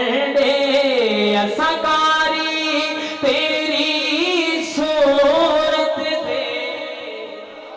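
A man singing a devotional kalam into a microphone, drawing out long, ornamented notes between lines, the voice fading away in the last second or two.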